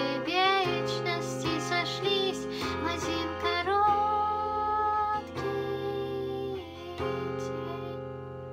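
Closing bars of a song: guitar-backed music with a melody line over steady chords, ending on a final chord that fades away over the last second or so.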